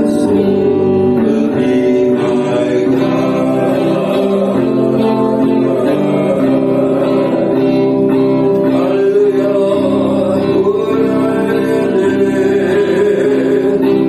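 Worship song: singing over guitar accompaniment at a steady level.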